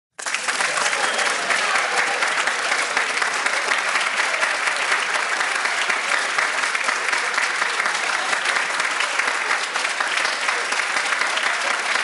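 Large audience applauding in a standing ovation: dense, steady clapping from many hands, starting abruptly.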